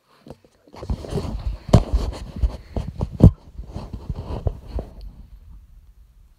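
Handling noise on a phone's microphone: a run of rubbing, knocks and thumps as the phone is moved and repositioned, with the sharpest knocks about two and three seconds in. It dies away about five seconds in.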